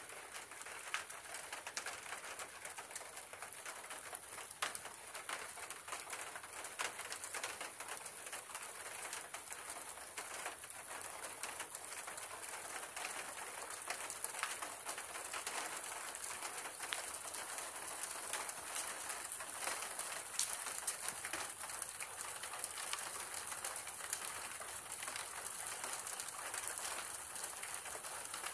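Rain falling steadily on a paved floor, a continuous hiss with many individual drops ticking through it, and a steady high-pitched tone behind it.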